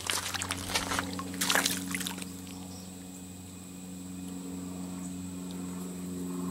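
Shallow water splashing and trickling for about two seconds, then settling into a steady low hum.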